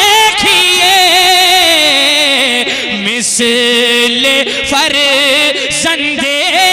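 A man's solo voice singing a naat through a microphone, in long held notes that slide and waver between pitches, with one long falling phrase in the middle.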